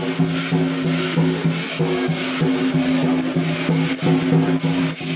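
Lion dance percussion music: drum beats and clashing percussion over a steady low held tone.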